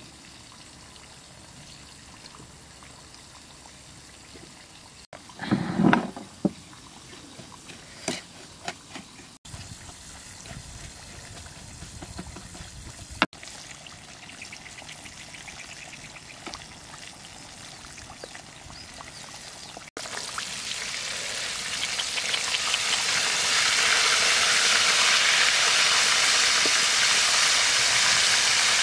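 Whole red fish deep-frying in a wok of bubbling oil, a steady sizzle that grows louder about two-thirds of the way through and stays loud. Earlier the frying is faint, with a few knocks about five to six seconds in.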